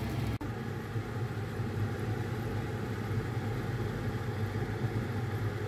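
Steady low motor hum with an even hiss over it, broken by a short dropout about half a second in.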